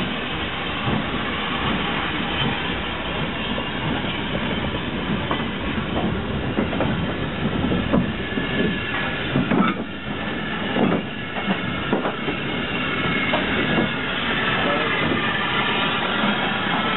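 Steam train passing at close range: a steady hiss of steam with irregular clanks and knocks from the wheels and couplings, which bunch up in the middle.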